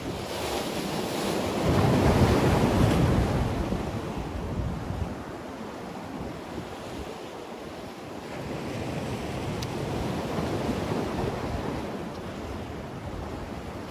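Sea waves surging and washing against the concrete blocks of a breakwater, loudest about two seconds in and swelling again later, with wind buffeting the microphone.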